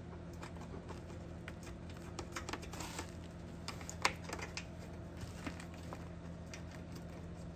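Scattered light clicks and rustling from hand work, as a screw is started by hand into a headlight assembly's mounting bracket, with the assembly's plastic wrap crinkling. One sharper click about four seconds in. A steady low hum runs underneath.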